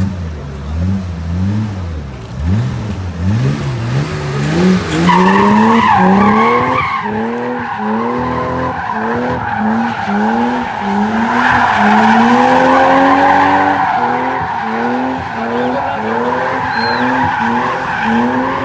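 BMW E30 325i's straight-six revving hard, its note climbing and dropping again and again, with the tyres squealing steadily from about five seconds in as the car slides around in a drift.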